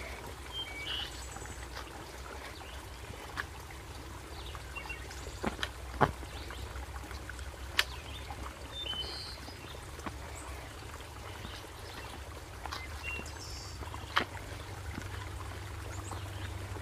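Walking on a rocky forest trail: scattered sharp clicks of trekking-pole tips and footsteps striking rock over a steady low rumble, with a few short bird chirps.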